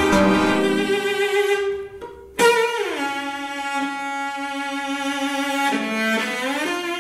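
Music for cello and digital electronics: long bowed notes. The sound drops away about two seconds in, then a sudden loud entry slides down in pitch into a long held note, with another pitch slide near the end.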